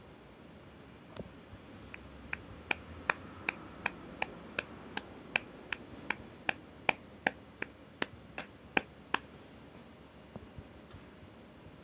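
A hand patting a cat's rump in a steady rhythm, about two or three light pats a second, starting about a second in and stopping about nine seconds in.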